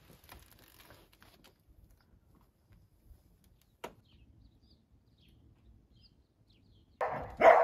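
Quiet outdoor air with a few faint bird chirps and one sharp click a little after the middle. Near the end a corgi barks loudly.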